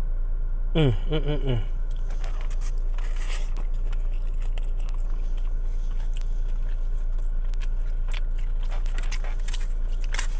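Close-up chewing and crunching of a crispy fried chicken sandwich, with a brief hummed vocal sound about a second in. A steady low hum runs underneath.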